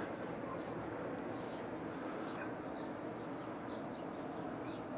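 Steady outdoor background rush with a few short, faint bird chirps scattered through it.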